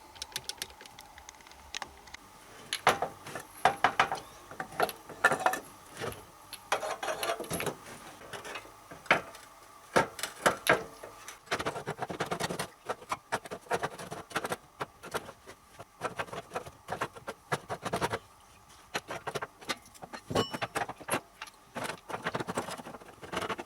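Irregular metallic clinks, knocks and rattles of hands working on a pitbike engine as it is assembled and fitted into the scooter's frame.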